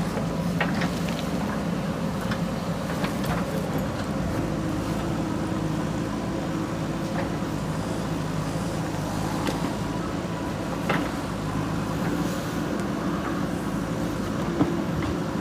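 JCB 3DX backhoe loader's diesel engine running steadily under work, with a few short knocks.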